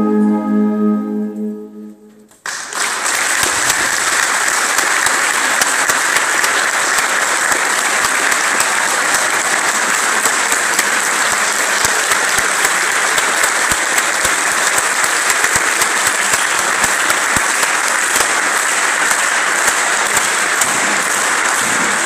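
A wind band's final held chord fades away, and about two seconds in the audience breaks into steady applause.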